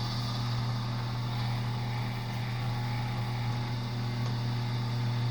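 Electric wire stripping machine's motor running with a steady hum.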